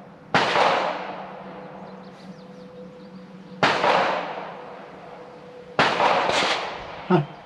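Several gunshots on a shooting range, a few seconds apart, each followed by a long echoing tail. A shorter sharp crack comes near the end.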